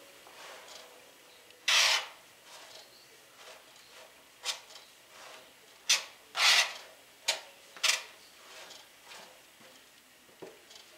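Metal fork scraping breadcrumbs off a flexible plastic cutting mat onto a plate, in about half a dozen short, uneven scrapes with pauses between.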